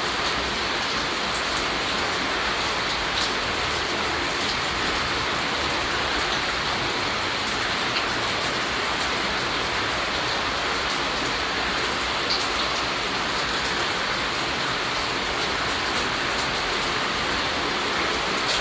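Steady rain falling, an even hiss with scattered sharper drop ticks on top.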